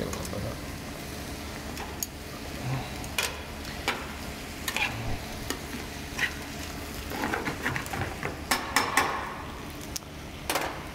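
Diced mirepoix and tomato paste sautéing in a stainless sauté pan over a gas burner, a steady sizzle as the tomato paste caramelizes with the vegetables. Metal tongs stir the pan with scattered clicks and scrapes, most of them about seven to nine seconds in.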